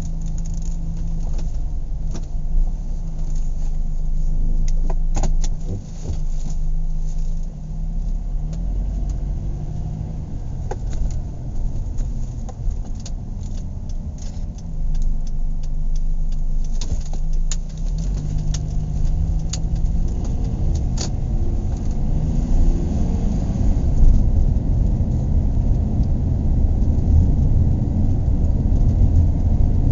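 Car engine and road noise heard inside the cabin: a steady engine hum for the first half, then the engine pulls harder and rises in pitch from about 18 seconds in. Small clicks and rattles come and go throughout.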